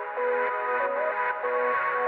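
Background electronic music: synthesizer notes changing pitch in a repeating melodic pattern.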